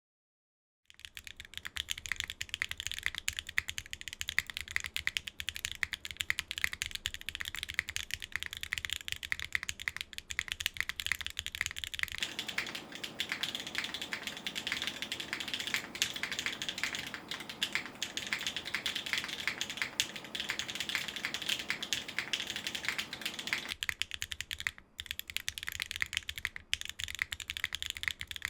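Steady, fast typing on a Geonworks F1-8K mechanical keyboard with an aluminium plate, stock Geon Raw Zero switches and PBT keycaps, starting about a second in. It is a dense, continuous run of keystroke clacks.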